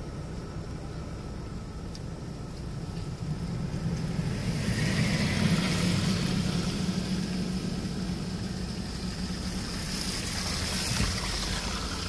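Steady low hum of a vehicle's engine heard from inside the cab. Cars passing on the road rise and fade with a tyre hiss about four to seven seconds in, and again near the end.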